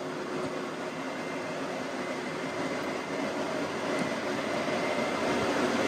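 Two 12-volt, 80-watt radiator fans running inside the solar kiln, a steady rush of air with a faint high steady tone, slowly growing louder.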